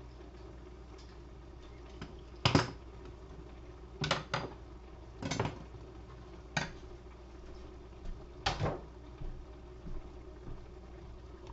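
Kitchen utensils and dishes being handled and set down on a counter: about half a dozen sharp knocks and clatters spread over several seconds, the loudest a couple of seconds in, over a steady low hum.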